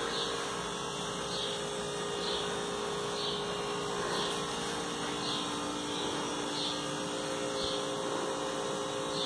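Steady low electrical hum over a background hiss: room tone, with no distinct event.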